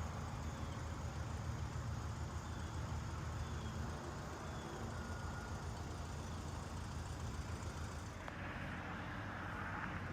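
Vehicle engine and road noise heard from inside the cabin: a steady low rumble, with a hiss joining in about eight seconds in.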